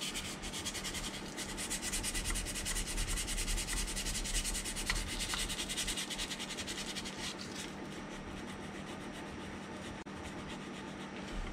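Hand sanding with 180-grit sandpaper over puttied seams on a plastic model hull: quick back-and-forth rubbing strokes, easing to quieter, more even strokes after about eight seconds.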